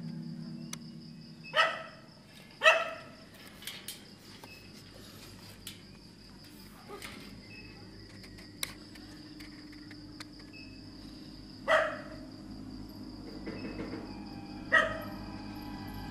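A dog barks four times, singly and spaced apart: twice in the first few seconds, then twice more in the second half. Under it a steady high-pitched tone runs on.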